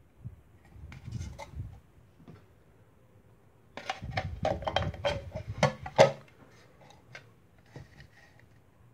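Thin sheet-metal tin cans being handled and fitted together: light metallic clinks and scrapes about a second in, then a dense run of clicks and knocks in the middle, the loudest near six seconds, as a small round Gamo pellet tin is pushed through the opening cut in the can's side. A few faint clicks follow near the end.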